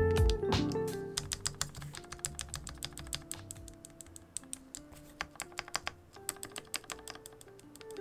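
Rapid, irregular clacking of keycaps pressed again and again on PCB-mounted keyboard stabilizers, as the stabilizers are checked during tuning, over background music.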